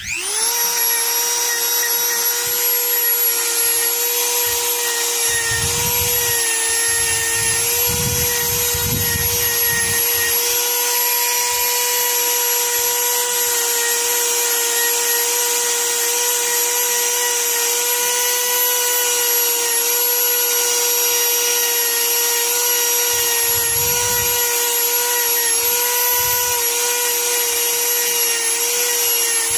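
A Dremel-type handheld rotary tool spins up at the start, then runs steadily at high speed with a high-pitched whine. The pitch wavers slightly as it works against the metal.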